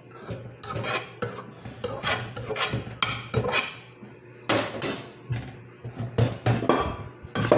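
A steel cooking pot and metal colander clanking and scraping in a stainless-steel sink: a run of irregular metal knocks and rubs, busiest and loudest in the second half.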